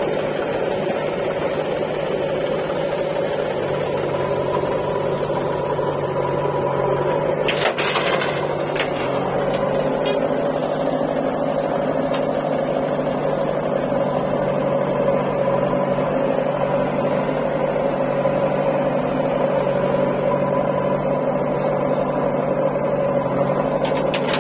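Diesel engine of a JCB 4DX backhoe loader running steadily while it works, with a couple of sharp clanks about eight and ten seconds in.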